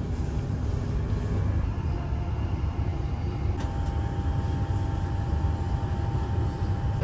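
Electric passenger train running at speed, heard from inside the carriage: a steady low rumble of the wheels on the track, with a faint steady whine that comes in about halfway through.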